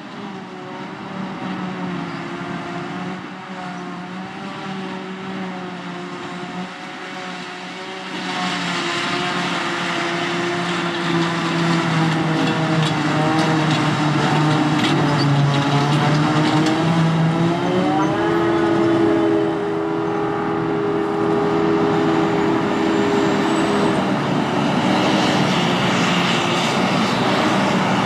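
Claas Jaguar self-propelled forage harvester and a Massey Ferguson tractor running side by side, their engines working steadily under load while chopping and blowing grass silage. The sound grows louder about eight seconds in, and an engine note rises in pitch about eighteen seconds in.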